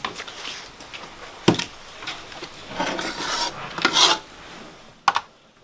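Metal cooking pot and steel bowl clanking and scraping as food is scooped out of the pot by hand: a sharp clank about a second and a half in, scraping and rattling around the middle, and a short clank near the end.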